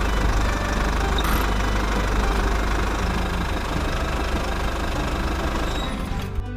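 A small machine motor running steadily with a low hum and a rattly, knocking texture; it cuts off near the end.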